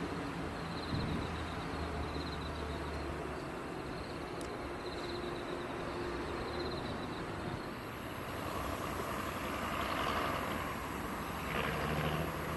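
Rural outdoor ambience with a steady low hum and faint pulsing insect chirps; from about eight seconds in, vehicles approach along a road.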